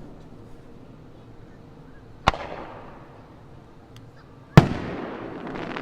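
Aerial firework shells bursting: a sharp bang about two seconds in, then a louder one about two seconds later that trails off into a lingering rumble with faint crackles.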